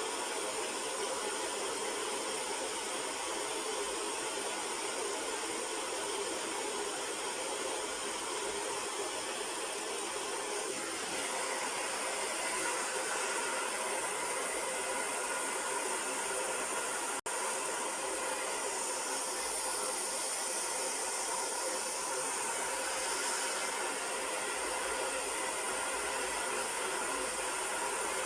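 Hair dryer on the cool setting blowing steadily, drying the glue spray on the lace; it breaks off for an instant about two-thirds of the way through, then carries on.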